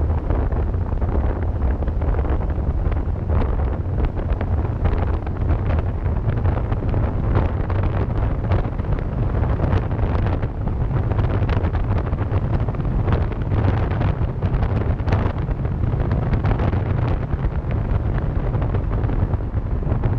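Car driving at speed: a steady low road rumble with wind buffeting the microphone.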